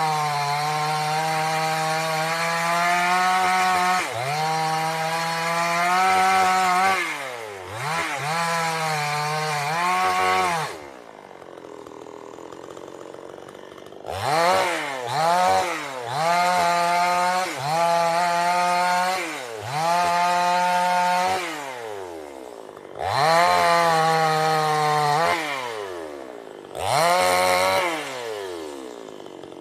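Two-stroke chainsaw cutting wood at full throttle, repeatedly letting off to a quiet idle and revving back up. There are several short blips of throttle in the middle and a longer idle partway through.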